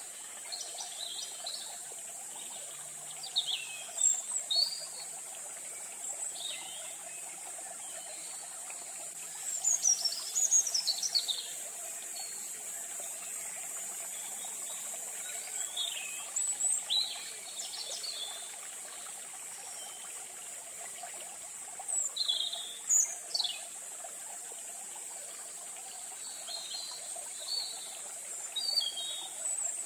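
Small birds chirping outside in short clusters of quick falling notes every few seconds, over a steady high-pitched insect drone.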